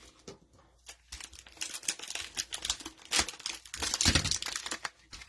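Cellophane wrapper of a trading-card cello pack being torn open and crinkled. A dense run of crackling starts about a second in.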